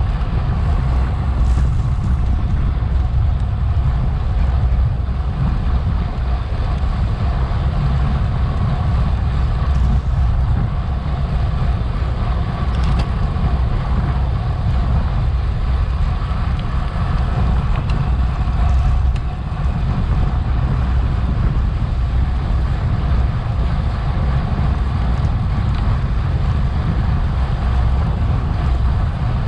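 Wind buffeting the microphone of a bike-mounted Garmin VIRB action camera at racing speed: a loud, steady low rush.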